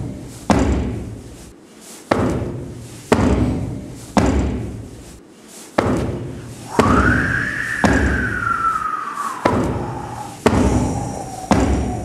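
Footsteps thudding on concrete stairs about once a second, each echoing in the stairwell. About halfway through, a high gliding tone rises, then slowly falls until near the end.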